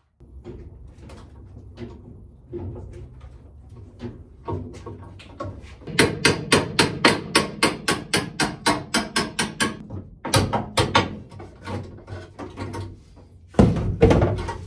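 Hammer blows on steel at a car body mount: a few scattered knocks, then a quick, even run of strikes about four a second, then slower single blows and a loud cluster near the end.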